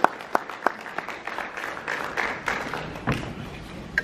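Audience applauding at the end of a talk. One close pair of hands claps sharply about three times a second, the applause fills out around the middle and then thins toward the end.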